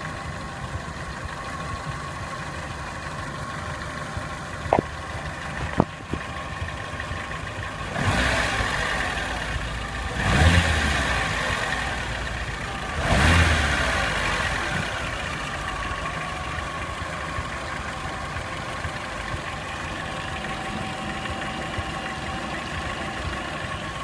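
Renault Symbol engine idling, revved briefly three times (about eight, ten and thirteen seconds in), each time falling back to idle; the owner is recording it for an engine knock. Two sharp clicks sound about five and six seconds in.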